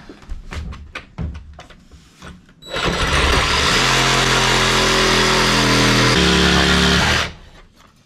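DeWalt cordless reciprocating saw cutting into a wooden floorboard: a few knocks as the blade is set, then about three seconds in the saw runs loudly for some four and a half seconds, its pitch stepping up and down, and stops abruptly.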